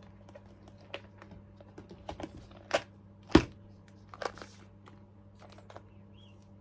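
Scattered clicks and crinkles from handling a packet of fishing sinker weights, with a sharper knock about three and a half seconds in, over a faint steady low hum.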